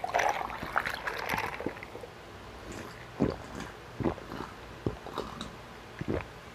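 Drinking ice water from a glass mug: light clinks in the first second or so, then about four loud gulps roughly a second apart.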